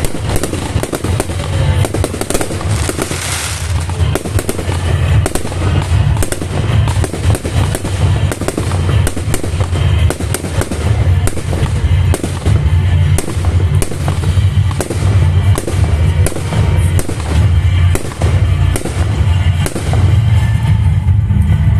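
Fireworks display: a rapid series of bangs and crackling bursts, with one longer hissing burst about three seconds in, over music with a heavy, pulsing bass.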